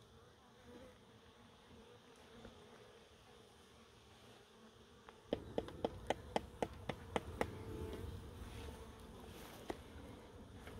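Honeybees buzzing around open hives, a steady hum. About halfway through, a low rumble of handling noise comes in with a quick run of about nine sharp knocks, roughly four a second, and one more knock near the end.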